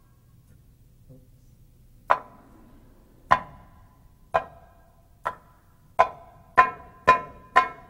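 Darbuka (goblet drum) struck with single sharp, ringing strokes. They begin about two seconds in, come roughly a second apart, then come faster and faster toward the end.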